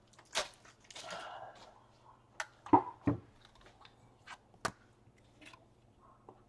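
Trading cards and one-touch magnetic card holders being handled: a short rustle about a second in and several sharp clicks and taps, the loudest a little under three seconds in.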